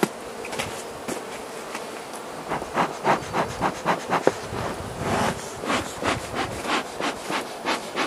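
Carniolan honey bees buzzing around the hive. From about two and a half seconds in, a run of short, quick scuffing sounds, about three a second, comes over the buzzing.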